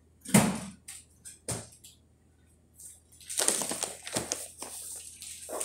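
Handling noises while topping a pizza: a sharp knock near the start and another about a second and a half in, then a stretch of crinkly rustling and small clicks.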